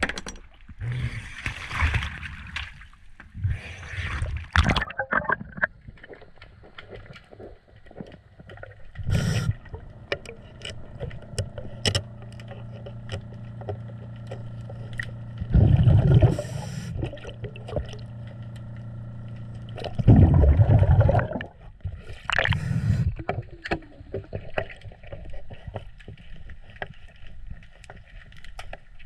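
Scuba regulator breathing heard underwater, with loud rushes of exhaled bubbles every few seconds and scattered small clicks.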